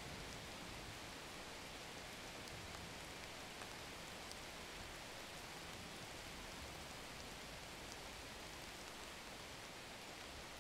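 Steady faint hiss of background noise with a few faint ticks.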